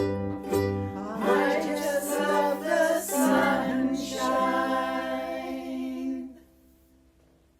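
End of a song: several voices sing in harmony, closing on a long held chord that fades out about six seconds in.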